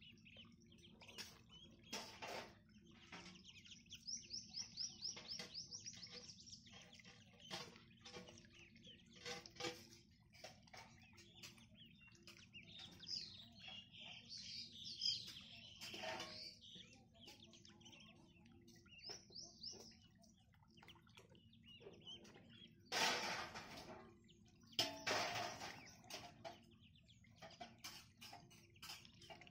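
Day-old ducklings peeping in runs of quick, high chirps while they dabble and paddle in shallow water, with many small clicks and splashes. About 23 seconds in, and again two seconds later, there is a louder burst of noise.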